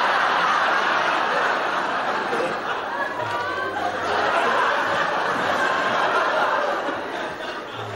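Studio audience laughing, a dense, sustained crowd laugh that eases a little near the end.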